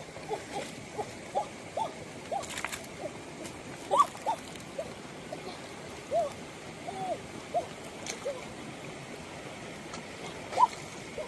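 Shallow rocky stream running, overlaid by short, rising-and-falling chirping calls, about two or three a second and irregular; two of them are louder, about four seconds in and near the end.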